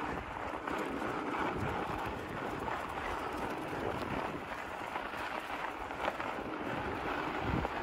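Steady rushing noise of a fat bike rolling along a packed snow trail, with wind buffeting the microphone.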